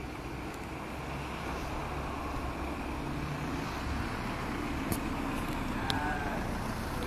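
Steady outdoor street noise, a low rumble like road traffic. Two short sharp clicks come about five and six seconds in.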